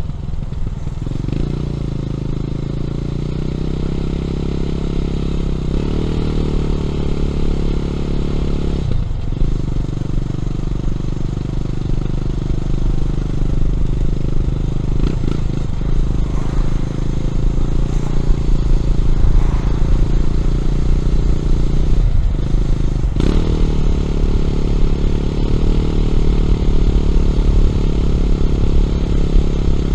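Honda CB400SS single-cylinder engine running through a Yamamoto A-spec aftermarket exhaust while the bike is ridden under load. Its note breaks off briefly and picks up again several times, as at gear changes, and a low rumble sits underneath.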